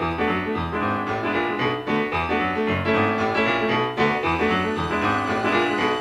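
Instrumental passage of a band's pop song, with a keyboard carrying the tune and no singing.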